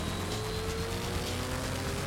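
Classic GT race car's engine heard from inside the cockpit under acceleration, its pitch rising steadily as the revs climb through the gear.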